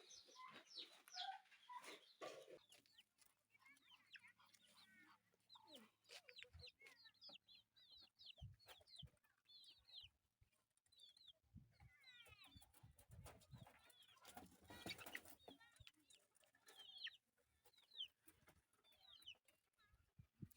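Faint calls of domestic poultry: clucking and many short, high chirps scattered throughout, with a few light clicks.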